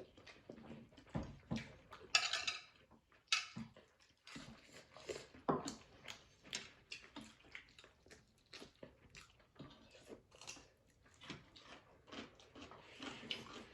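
Close-up eating sounds: wet chewing and lip smacking in many short irregular clicks, with a few louder scraping noises about two and three seconds in, as from food being scooped off a plate.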